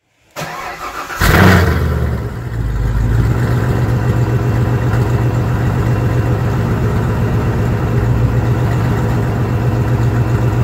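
Supercharged 6.2-litre LT1 V8 of a C7 Corvette Stingray being started. The starter cranks for about a second, the engine catches with a loud rev flare, then settles into a steady idle.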